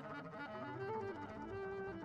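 Live jazz from a quartet of clarinet, accordion, double bass and drums, with a melody line stepping up and down over a steady bass part.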